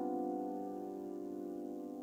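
Fazioli grand piano: a chord held with no new notes struck, ringing on and slowly fading.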